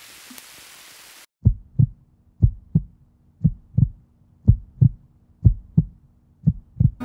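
A steady hiss that cuts off about a second in, then a heartbeat sound effect: paired low thumps, lub-dub, about once a second, six beats in all.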